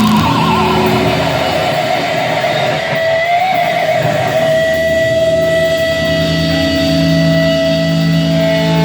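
Electric guitar feedback through a loud amplifier: high sustained tones that slide down in pitch over the first few seconds and then hold steady, over a held low droning note.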